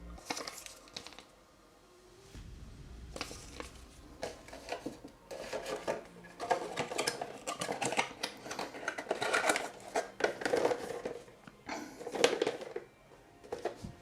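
Hands handling computer-part retail packaging: repeated clicks, taps and rustles of plastic and cardboard, coming in irregular bursts that grow busier after a few seconds, with one sharper click near the end.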